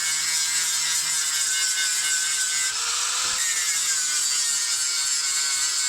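Angle grinder running against the rusted steel chassis of a Mitsubishi Delica, a steady high grinding whine whose pitch sags briefly about three seconds in as it bites, then picks up again.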